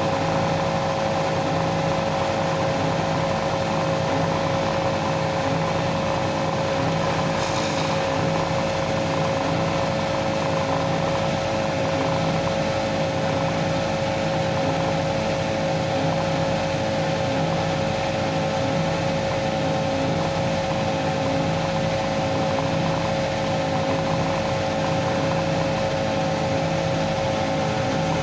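Homemade belt sander running steadily, its 2800 rpm electric motor driving the sanding-belt rollers directly at 1:1: an unbroken machine hum with a constant whine above it.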